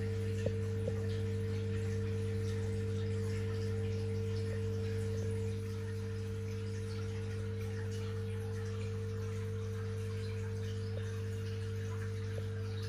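Steady electrical hum from aquarium equipment such as a pump or filter, with a faint trickle of water. It gets slightly quieter about halfway through.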